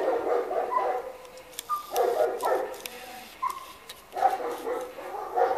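A dog barking in three quick bouts of rapid barks, with short pauses between them.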